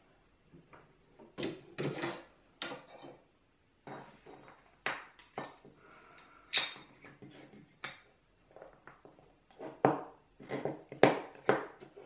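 Bent brass sheet strips clinking and knocking against each other, a plywood block and a wooden workbench as they are handled and fitted: a string of irregular clinks and taps, loudest near the end.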